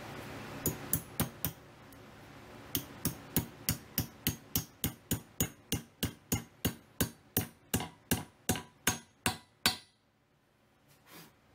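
A hammer driving a step wedge into the eye of a hand-forged hammer head to lock its hickory handle: four quick taps about a second in, a short pause, then a steady run of about three strikes a second that grows louder and stops about ten seconds in.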